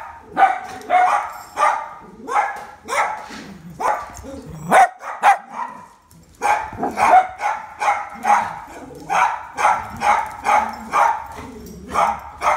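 A pet spaniel barking over and over, about two sharp barks a second, with a short pause about halfway through. It is demand barking for its food at feeding time.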